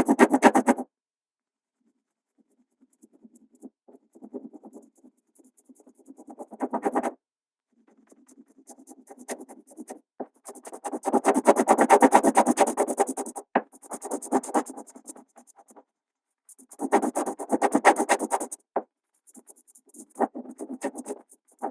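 Graphite pencil shading on paper: a soft, scratchy sound of rapid back-and-forth strokes. It comes in bursts of one to three seconds with brief silent pauses between them, some faint and others louder.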